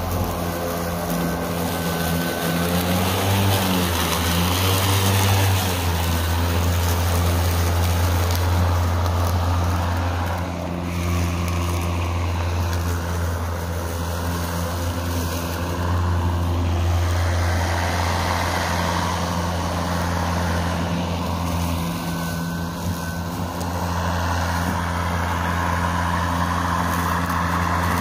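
Hart 40-volt brushless 20-inch cordless push mower running as it is pushed through grass. A steady electric-motor hum with the spinning blade's rush of air, easing briefly a couple of times.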